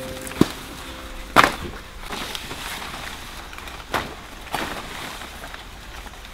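A few sharp knocks or taps, spaced irregularly over a faint rustling haze. Background music stops about a second in.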